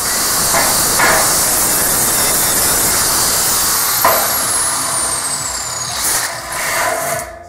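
Small corded angle grinder with a sanding disc, running loud and steady as it deburrs freshly drilled holes in 2 mm steel box tubing. In the second half a high whine falls steadily in pitch, and the noise cuts off shortly before the end.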